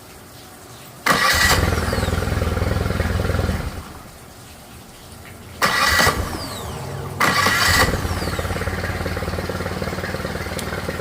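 Suzuki DF20 outboard motor started: it runs for about two and a half seconds and shuts off. It is started again a few seconds later, revs briefly, and runs steadily until it shuts off near the end. The shutdowns are a test of a newly wired aftermarket kill switch.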